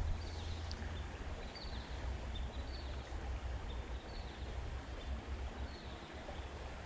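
Creek water running steadily with a low rumble, while a small bird gives short high chirps about once a second.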